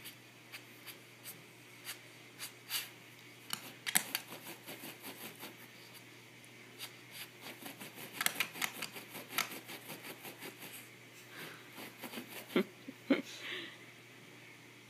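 A dog digging at carpet with its front paws, its nails scratching in quick runs of short strokes, with a couple of sharper knocks near the end.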